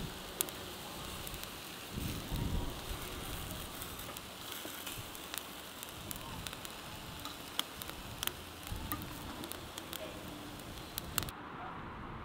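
Vegetables sizzling on a charcoal grill, with many small sharp crackles and pops from the coals, and tongs knocking against the grate as bell peppers are turned. The sizzling cuts off about a second before the end.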